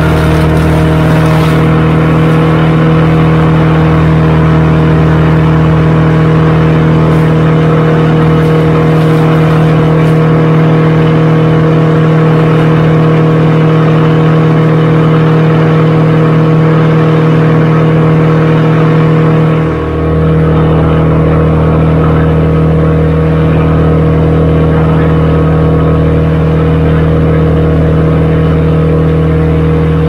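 Large engine running steadily at a constant speed, a loud even drone that holds the same pitch throughout, with a brief dip about twenty seconds in.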